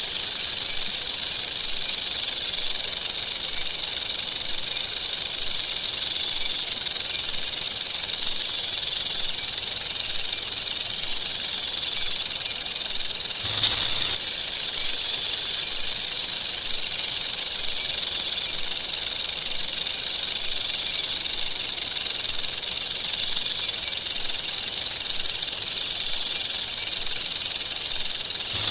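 A snake making a steady, high hiss without a break, with a brief jump in level about 14 seconds in.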